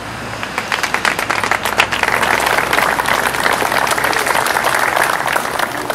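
A small crowd applauding. The clapping starts about half a second in and quickly builds to a steady patter.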